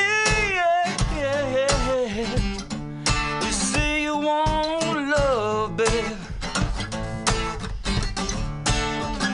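A man singing, holding notes with vibrato, over a strummed acoustic guitar in a live acoustic song performance.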